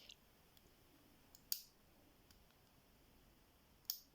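Sharp, faint clicks from a small push-button combination padlock as its little levers are pushed in one by one while the shackle is pulled, with two louder clicks, one about a second and a half in and one near the end.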